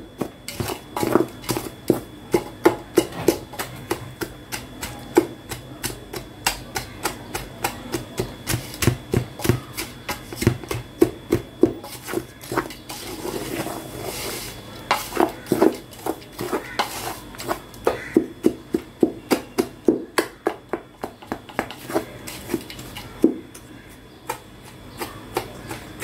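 Metal spoon stirring a dry, crumbly mix of roasted whole wheat flour and icing sugar in a stainless steel bowl, clinking against the bowl two or three times a second as it breaks up the lumps, over a low grainy scraping.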